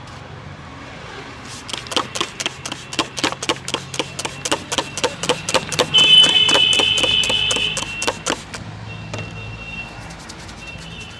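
Rapid hand slaps and taps on the head during an Indian head massage, about four or five a second for several seconds. A vehicle horn sounds loudly for about two seconds midway, with shorter horn toots near the end.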